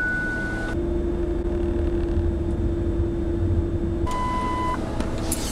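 Ford Explorer engine running at idle just after starting, a steady low rumble with a hum over it. A brief electronic chime sounds about four seconds in.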